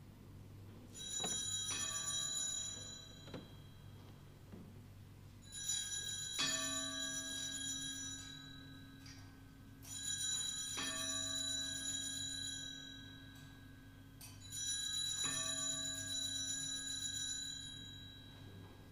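Altar bells (sanctus bells) shaken four times, about every four and a half seconds, each ring fading over a few seconds. At this point in the Mass they mark the elevation at the consecration.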